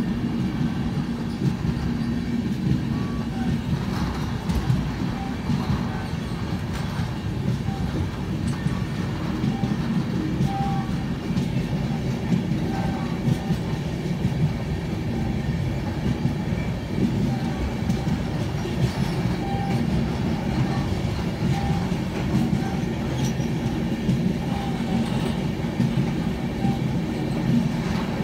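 Express train running over a river bridge, heard from on board: a steady rumble of wheels on rail with faint scattered clicks.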